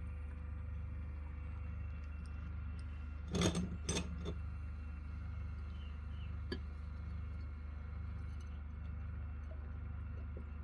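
Laboratory glassware clinking two or three times in quick succession about three and a half seconds in, then a single light tap a few seconds later, over a steady low hum.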